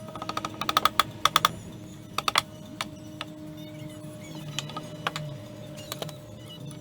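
Quick runs of light, sharp clicks and taps, densest in the first second and a half and again just after two seconds, then a few single clicks, over soft sustained background music.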